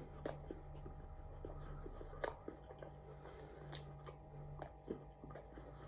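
A person chewing a mouthful of burger with the mouth closed, giving scattered wet mouth clicks, the sharpest about two seconds in, over a low steady hum.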